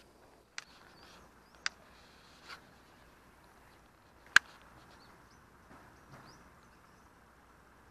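Quiet open-air ambience with faint bird chirps. A few sharp clicks stand out, the loudest about four seconds in.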